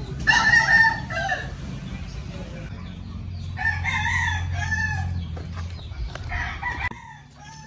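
Rooster crowing three times: a loud crow about a second long at the start, another around four seconds in, and a fainter one near the end, over a low steady hum.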